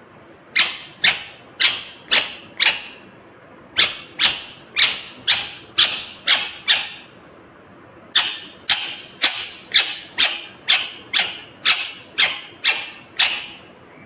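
Indian ringneck parakeet giving loud, harsh screeching calls, about two a second, in three runs separated by short pauses.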